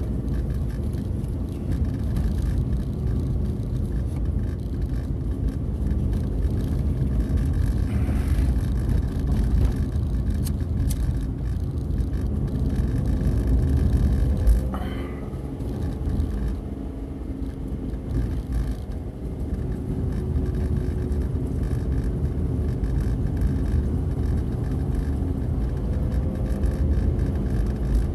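Car engine and tyre noise heard from inside the cabin: a steady low rumble while driving along a narrow road. A brief knock about halfway through, after which the rumble drops a little.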